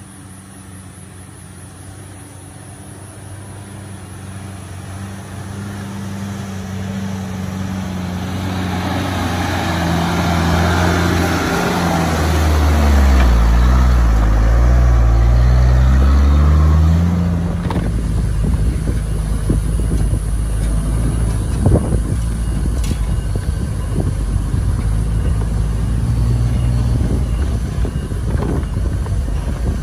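Diesel engine of a truck loaded with sugarcane, labouring on a rough dirt track. It grows louder as the truck approaches and is loudest as it passes a little under halfway through, its pitch shifting. It then drops to a lower, rougher running sound with a few sharp knocks and rattles as the truck pulls away over the ruts.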